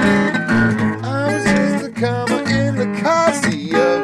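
Acoustic guitar strummed steadily, with a man's voice singing a bending, wordless-sounding line over it in the second half.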